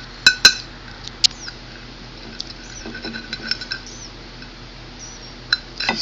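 Tableware clinking: two sharp clinks in the first half second, another a little later and one more near the end, with faint high squeaks in between.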